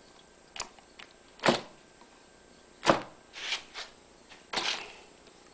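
Hand-built miniature V8 model engine, running on Coleman fuel premix, being flipped over by hand to start: about seven sharp clicks and pops at irregular intervals, with no steady running, as it fails to catch.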